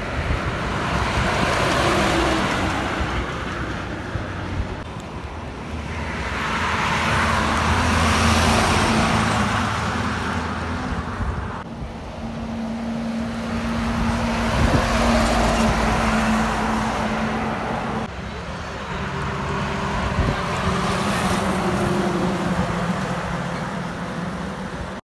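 Lorries driving past on a highway one after another: tyre and engine noise swells and fades about four times as each goes by, over a steady low engine drone.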